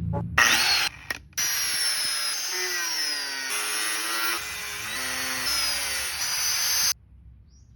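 Loud drill-like mechanical whirring noise that starts abruptly, breaks off briefly, then runs on with shifting pitch before cutting off suddenly near the end.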